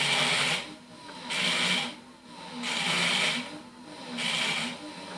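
A 48 V, 500 W geared hub motor spinning with a steady hum while a rough, hissing crackle swells and fades about every second and a half as the wheel is braked by hand. The crackle is a foreign noise that shows up under load, and its source in the motor is not yet found.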